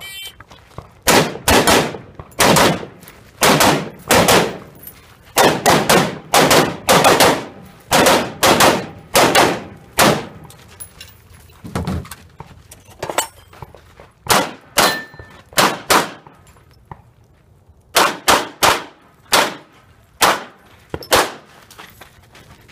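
A long string of shotgun blasts, about one every half second to a second, with a couple of short breaks. They are fired by a competitor shooting a practical-shooting stage against the clock, and a shot timer beeps just before the first shot.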